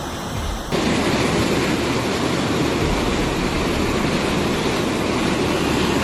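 Steady loud rushing noise with no distinct events; less than a second in it cuts to a louder, fuller rush that holds steady.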